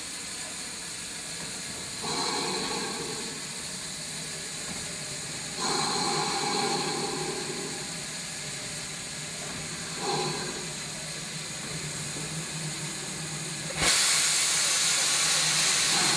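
GWR 5700 class pannier tank steam locomotive hissing steam. The hiss swells a few times, then a sudden, much louder steady hiss starts near the end.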